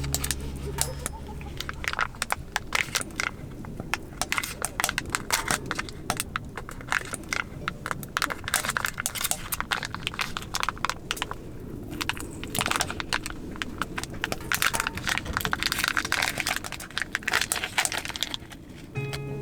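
Wood fire crackling and popping in irregular snaps, with a denser run of crackles in the second half.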